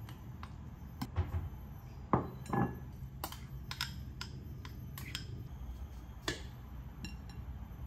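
A metal fork and spoon clink and scrape against ceramic bowls as a mash is stirred and scraped from one bowl into another, with a few louder knocks in the first half. Near the end, a knife taps through cucumber onto a wooden cutting board.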